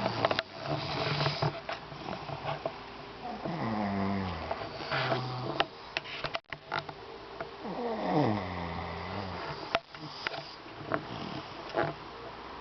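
A sleeping person snoring: rough, noisy breaths with two long snores about four and eight seconds in that fall in pitch, plus a few short sharp clicks.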